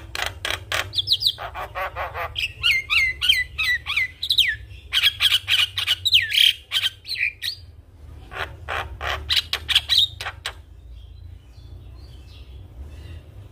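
Javan myna singing a busy song of fast rattling clicks mixed with short falling whistles, going quiet about ten seconds in.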